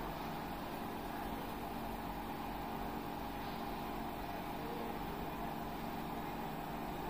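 Steady background hum and hiss, with a constant tone band near 1 kHz and low hum underneath; nothing starts or stops.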